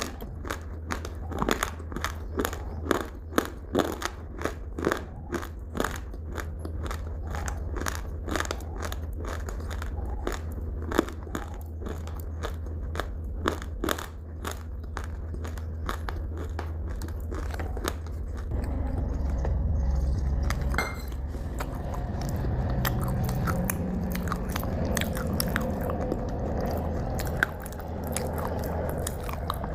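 Close-miked chewing of crunchy food: a steady run of sharp crunches, several a second. After about 18 s the chewing turns softer and more continuous.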